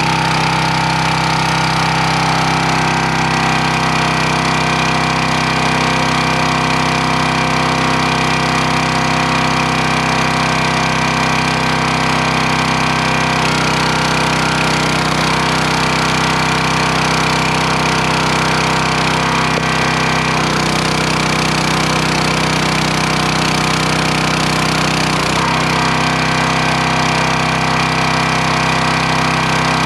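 Engine of a 25-ton wood splitter running steadily, its tone shifting slightly a few times as the splitter works.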